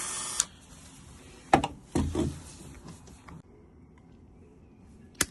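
A Dremel rotary tool running with a high whine stops with a click about half a second in. Then come a few knocks and clicks of tools being handled, with a sharp click near the end.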